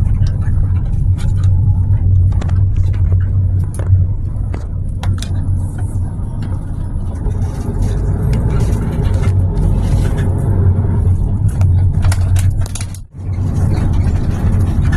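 Steady low drone of road and engine noise heard from inside a moving vehicle, with scattered small clicks and rattles. The sound briefly drops out about thirteen seconds in.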